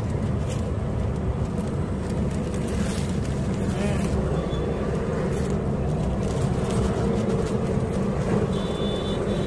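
Steady low rumble of roadside traffic, with voices in the background.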